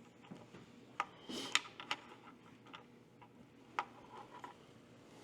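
Small scattered clicks and taps from handling small screws and mounting parts, with a brief rustle about a second and a half in.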